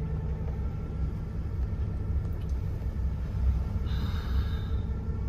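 Boat engine running steadily with a low rumble, and a brief higher-pitched whine about four seconds in.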